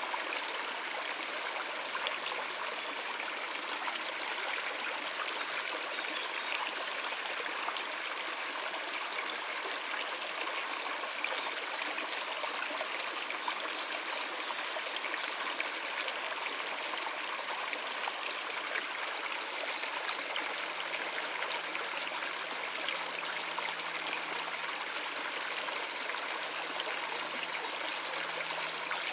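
Stream water running over rocks: a steady rushing and trickling flow.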